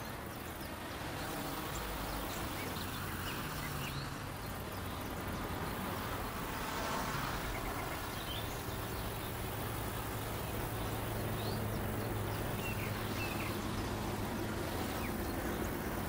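Steady outdoor night background: a low hum of distant traffic with faint chirps now and then.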